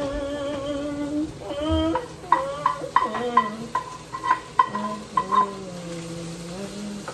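Food sizzling in a hot frying pan while being stirred, the utensil scraping and knocking against the pan in a quick run of strokes through the middle.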